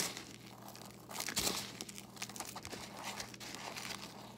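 Hands pressing batter-coated puffball mushroom slices into crushed Frosted Flakes in a plastic container, making irregular crinkling and crackling, a little louder about a second and a half in.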